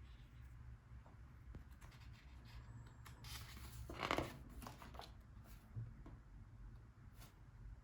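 Paper pages of a book being handled and turned, giving soft rustles, with one louder page-turn swish about four seconds in, over a low steady hum.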